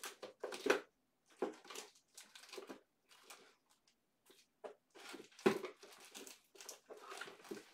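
Trading cards and their plastic packaging being handled: irregular short crinkles and rustles, loudest just under a second in and about five and a half seconds in.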